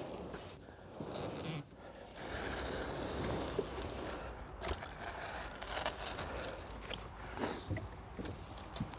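Fishing gear being handled on a kayak: scattered light knocks, scrapes and rustling, with a short rasp about seven and a half seconds in.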